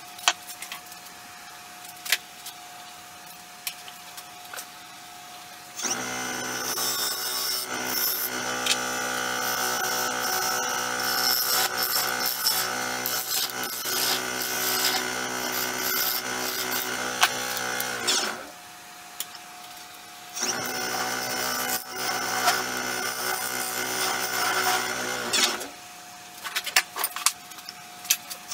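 Nova Galaxi DVR wood lathe spinning a cedar-and-resin bowl blank with a gouge cutting it. The sound starts about six seconds in, winds down with falling pitch about eighteen seconds in, runs again, then winds down again a few seconds before the end. Light clicks and knocks come before and after.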